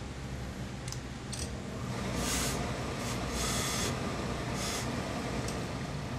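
Handheld steam iron hissing in several short bursts of steam over a steady low background hum, with a few faint clicks.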